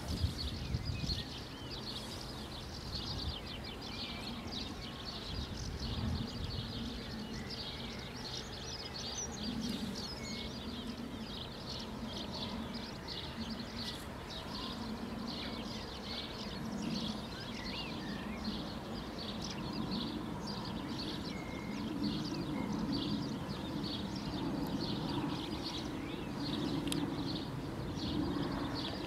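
Small songbirds chirping continuously in the surrounding trees, a dense run of short high notes. From about nine seconds in, a low sound comes and goes beneath them.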